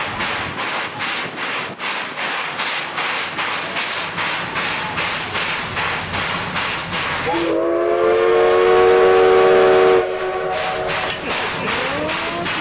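C11 steam locomotive hissing steam with a rapid, even pulse, then giving one whistle blast about seven seconds in. The blast lasts about two and a half seconds, is the loudest sound, and cuts off sharply.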